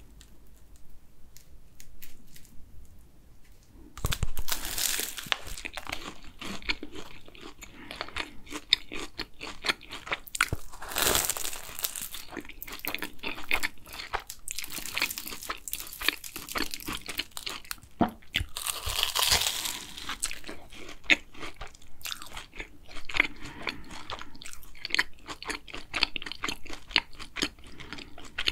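Biting into and chewing a pink-glazed Simpson cronut, recorded up close: the flaky laminated pastry crackles and crunches, with wet chewing in between. It starts a few seconds in, after a quiet pause, and several louder bites follow.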